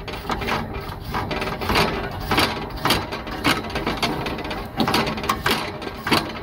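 Grill brush scrubbing a metal barbecue grate over hot coals: rapid back-and-forth scraping strokes, about two or three a second, cleaning the heated grate.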